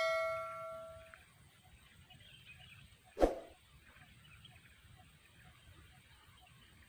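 A metal object rings after being struck, with several clear tones fading out over about a second. About three seconds in comes a single short, dull knock.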